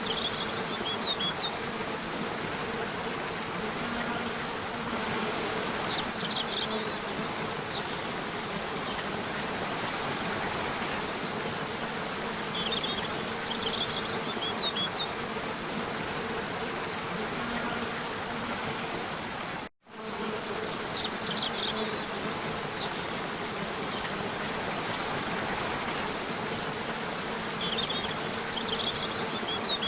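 Nature soundscape: a steady rushing hiss like running water, with a constant insect buzz and short high bird chirps in small clusters every several seconds. The sound cuts out for an instant a little before the twenty-second mark, then resumes.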